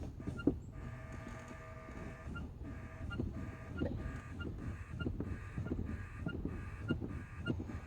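Truck engine being cranked by its starter, turning over slowly in a steady beat about twice a second without catching, after a single sharp click about half a second in. The hard start is from the truck having sat unused for a while.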